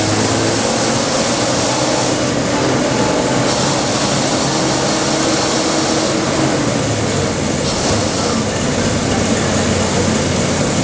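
Non-air-conditioned city bus under way, heard from inside: a steady engine drone mixed with constant road and rattle noise.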